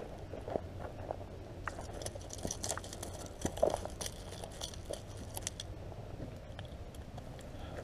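Gravel crunching underfoot and under a landed striped bass drawn up the bank on the line, in scattered crunches and clicks, denser for a few seconds in the middle.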